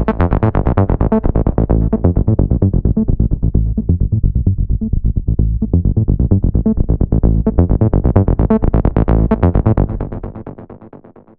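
Acid techno played on iPad synth apps: a fast, repeating run of short synth-bassline notes in the style of a TB-303 on JimAudio's Pure Acid. The tone darkens around the middle and brightens again, then the music fades away near the end as playback stops.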